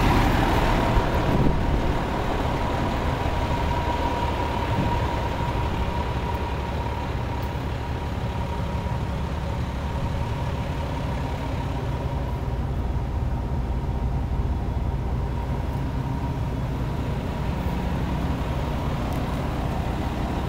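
International 7600 plow truck's diesel engine idling steadily, with a steady high whine running along with it. It is louder for the first couple of seconds, then settles.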